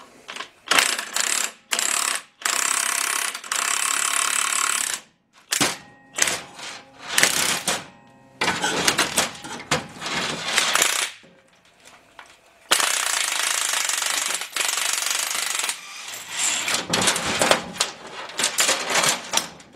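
Impact wrench hammering in repeated bursts, some short and some running steadily for two to three seconds, as it drives the forcing screw of a bearing puller to draw the stubborn front bearing off an SM465 transmission.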